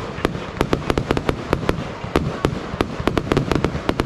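Fireworks display going off in a rapid, irregular string of sharp cracks and bangs, several a second, over a continuous rumble of bursts.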